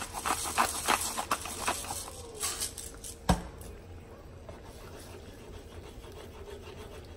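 Hand pepper grinder twisted over a pan, a quick run of crunching grinds for about two seconds. A single sharp knock follows a little after three seconds.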